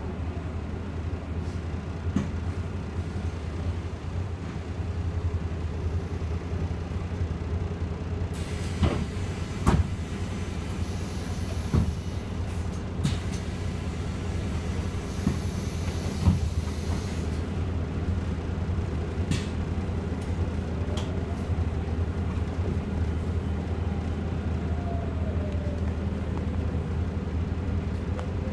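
Inside an Iveco Urbanway 18 Hybrid articulated bus under way: a steady low drivetrain rumble, with a faint whine that rises and falls in pitch as the bus speeds up and slows. A few short knocks and two brief spells of hiss come through the cabin.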